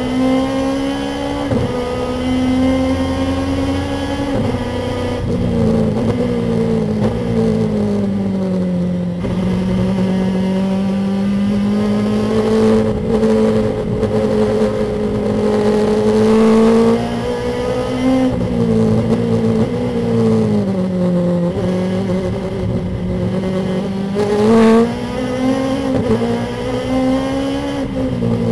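Lexus race car's engine heard from inside the cockpit, running hard at speed; its pitch rises and falls several times as the driver changes gear and lifts off the throttle. About 24 seconds in there is a brief, louder burst.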